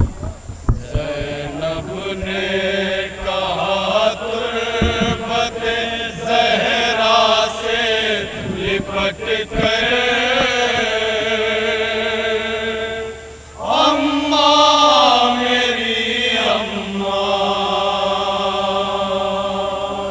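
Men chanting a noha, a Shia mourning lament in Urdu, into a microphone, in long drawn-out notes that rise and fall. There is a short break about two-thirds of the way through before the next phrase begins.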